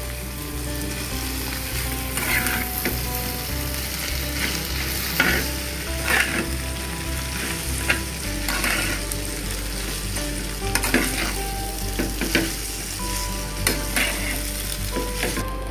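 Flat rice noodles with egg, chicken, fish and paneer sizzling in a hot pan as they are tossed and mixed with a metal spatula and tongs. The steady frying hiss is broken by short scrapes and clinks of the utensils against the pan every second or so.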